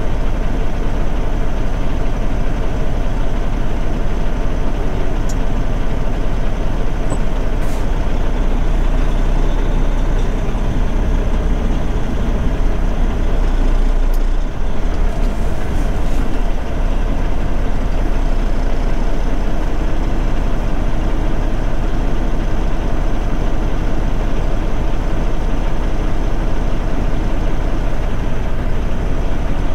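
Semi-truck's diesel engine running with a steady low rumble, heard from inside the cab, with a brief change in the sound about halfway through.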